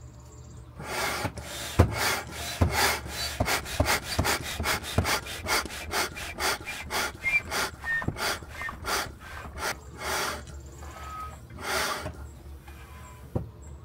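Hand pump with selectable volume and pressure settings being worked up and down to inflate an inflatable stand-up paddle board: a fast, even run of rushing air strokes, several a second, sped up to double speed. The pumping starts about a second in and stops near the end.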